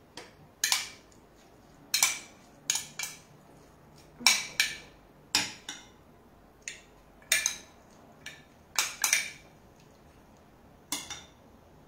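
A metal utensil clinking and scraping against a glass dish while diced vegetables are stirred in their dressing. There are about fifteen separate sharp clinks at uneven intervals, some in quick pairs.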